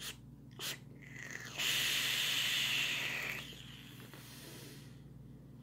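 A man vaping on a box-mod e-cigarette: two short clicks, then a loud hiss of air and vapour through the device lasting about two seconds.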